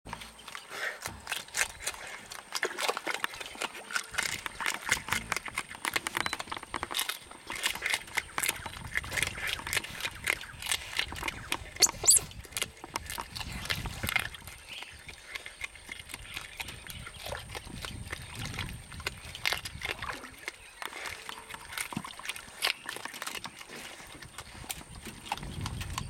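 Giant otters chewing and crunching whole fish: a dense, irregular run of wet crunches and sharp clicks as teeth bite through flesh and bone. A short high-pitched sound about halfway through is the loudest moment.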